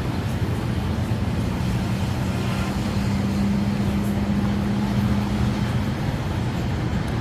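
Steady city traffic rumble, with a low engine hum that holds for a few seconds in the middle and then fades.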